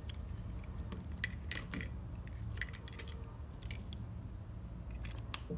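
Scattered light clicks and taps of fountain pens and their caps being handled: caps pulled off and pens and caps set down on paper, with the sharpest click near the end.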